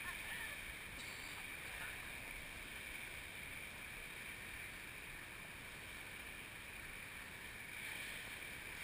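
Steady rush of fast river water around an inflatable raft running toward rapids, a little louder near the end.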